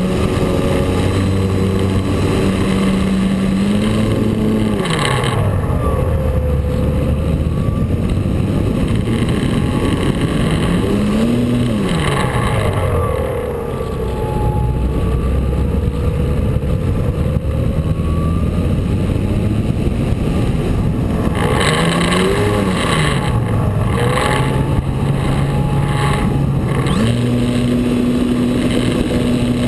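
Radio-controlled DHC Beaver model plane's motor and propeller running in flight, heard from on board, its pitch dropping sharply and climbing back several times as the throttle changes. Steady wind rush over the microphone throughout.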